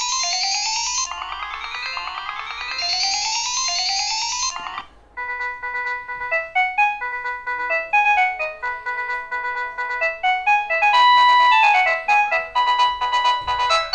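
Modottel WTE-300 mobile phone playing its 16-voice polyphonic MIDI ringtones through its speaker. A fast, repeating run of rising notes cuts off about five seconds in, and a different, slower melody of held notes begins.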